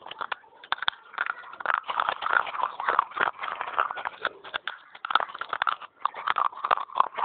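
Pieces of an unglazed terracotta clay pot being bitten and chewed, a dense run of fast, irregular crunches and crackles.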